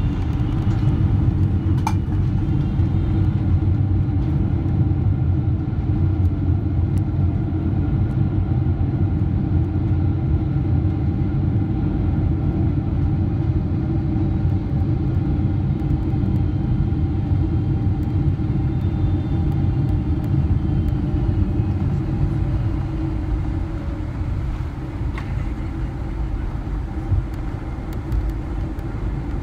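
Boeing 777-300ER heard from inside the cabin on the landing rollout: a steady, heavy rumble of the wheels on the runway mixed with the GE90 engines, with faint whines slowly falling in pitch as the aircraft slows. The rumble eases a little near the end.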